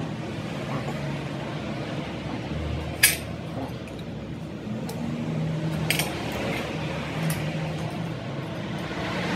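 Metal tools or parts clinking as they are handled, over a steady low hum. A sharp clink comes about three seconds in and is the loudest; another follows near six seconds.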